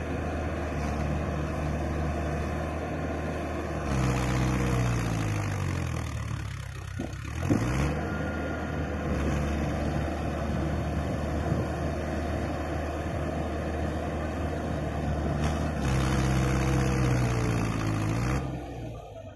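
Mahindra Arjun tractor's diesel engine working while stuck in paddy-field mud. It runs steadily, and twice, about four seconds in and again near the end, the revs shift and sag over a few seconds before picking up again.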